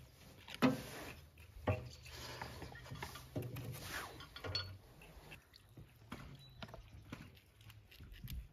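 Sticks of kindling knocking and scraping against the inside of a small sheet-metal wood stove as they are laid in the open firebox: a string of separate knocks and clinks with some rustling of wood between them.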